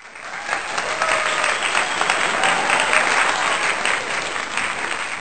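A crowd clapping and cheering, with voices mixed into the applause; it fades in over the first half second.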